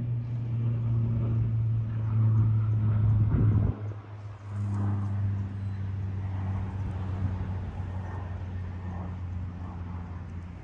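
A motor vehicle engine running steadily as a low hum. It breaks off briefly a little under four seconds in, then carries on at a slightly lower pitch.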